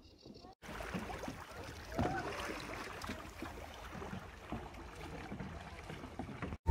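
Open-air river ambience: a steady rush of wind and water as kayakers paddle past on the river. It starts abruptly about half a second in.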